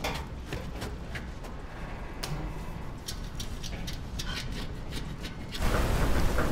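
Creaks and clicks of the rusted metal of a wrecked aircraft fuselage, scattered over a low rumble. About five and a half seconds in, this gives way suddenly to the loud, steady rush of white-water rapids.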